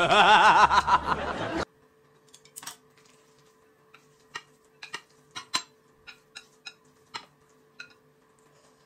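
A loud, wavering melodic sound for about the first second and a half, then sparse light clicks of chopsticks against a ceramic bowl as noodles are picked up, over a faint steady hum.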